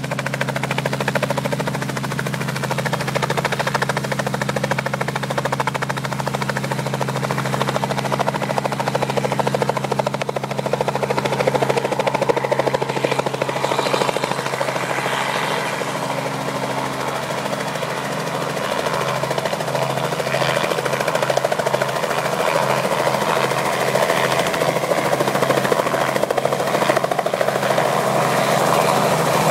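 Robinson R44 helicopter with its Lycoming six-cylinder piston engine running and rotor turning, a steady hum of engine and rotor tones. In the second half the tones shift and the rotor noise grows louder as it powers up to lift off.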